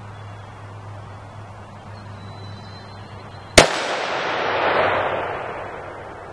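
A single unsuppressed 300 Blackout rifle shot, a factory supersonic load, about three and a half seconds in: one sharp crack followed by a long rolling echo that swells and then fades over about two seconds.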